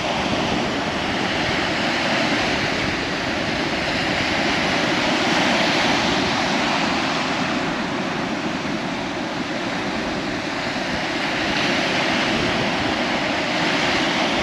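Ocean surf washing ashore: a steady rushing noise that swells and eases slowly.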